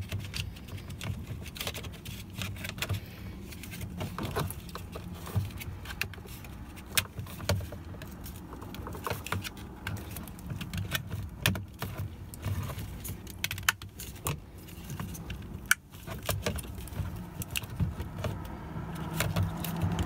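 Hard plastic clicking and rattling as a replacement power master window switch is pressed and snapped into its plastic door-panel bezel. Many short, sharp clicks come at irregular moments over a low steady hum.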